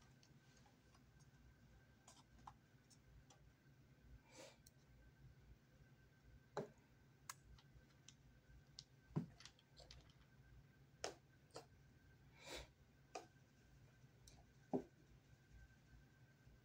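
Near silence with scattered faint clicks and taps, about ten in all, as small plastic objects and cases on a dresser are picked up and handled, over a faint steady high whine.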